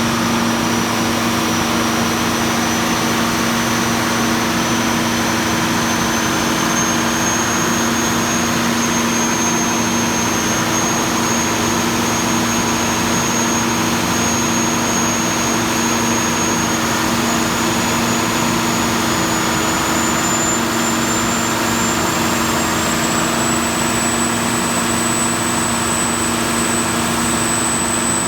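Volvo TAD1641GE six-cylinder diesel generator set running steadily under load, a constant engine drone with a high whine that climbs slowly in pitch.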